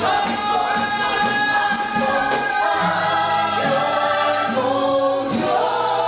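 Ensemble singing with instrumental accompaniment: several voices holding notes together over a beat that is marked in the first couple of seconds, then sustained chords.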